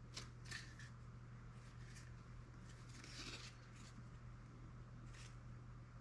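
Faint, brief scrapes and taps of a damp, ammonia-softened balsa sheet being handled and bent by hand, with a longer rustle about three seconds in, over a steady low hum.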